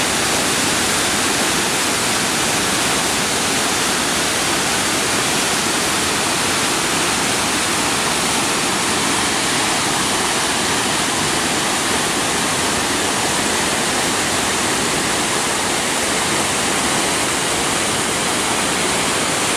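Flood-swollen mountain river in spate, a muddy, debris-laden torrent, rushing with a loud, steady roar of water. It is a flash flood, running high in a new course after a night thunderstorm.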